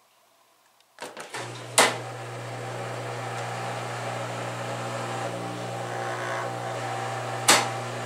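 Samsung WF350ANW front-load washer starting up on test, its door lock switch newly replaced: a few clicks about a second in, a loud sharp click, then a steady hum as it runs, with another sharp click near the end. The machine is running, no longer halting with the dS door error.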